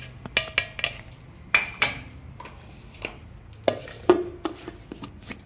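Steel kitchenware clinking and knocking: a perforated metal strainer tapped against a stainless-steel mixer-grinder jar as the last roasted peanuts go in, then the jar's plastic lid being fitted. Scattered sharp clicks and knocks, a few ringing briefly.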